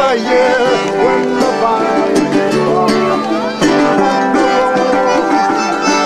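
Live traditional folk music played and sung: a plucked banjo and other acoustic instruments under voices singing a May Day song.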